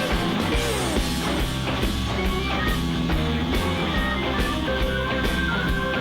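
Rock music with electric guitar and drums at a steady beat.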